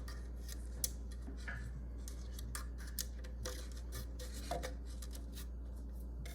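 Light scattered clicks and rubbing as electrical wires are handled and threaded out through the vent holes of a doorbell chime housing, the sharpest click about a second in, over a steady low hum.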